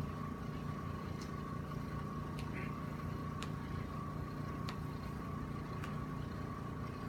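Steady room hum with a faint constant tone, broken by about five faint sharp clicks spaced roughly a second apart.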